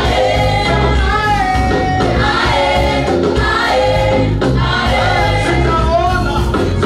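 Church choir singing a Swahili gospel praise song over a steady beat and bass.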